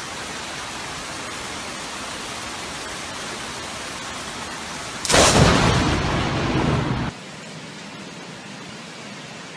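Thunderstorm: a steady hiss of rain, then about five seconds in a loud clap of thunder lasting about two seconds, cut off suddenly, followed by quieter rain.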